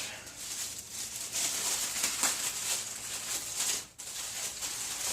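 Packing material in the saw's box rustling and scraping as parts are dug out by hand, an uneven, scratchy rustle with small clicks.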